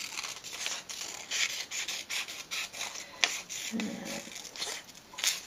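Scissors snipping through paper in a run of short cuts, with the paper rustling as it is turned; two sharper clicks, about three seconds in and near the end.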